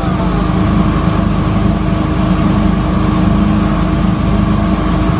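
Motorboat engine running at a steady speed while the boat is under way, a constant even drone.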